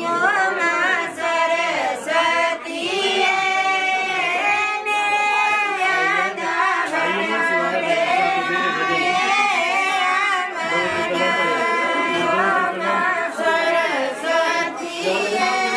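A group of women singing a Himachali pahari wedding folk song together, with long, wavering held notes.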